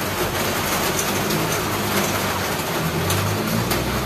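Thick coconut-milk and sugar syrup for kalamay boiling hard in a wide wok over a gas burner: a steady bubbling hiss with scattered small pops over a low hum. The mixture is nearly cooked down.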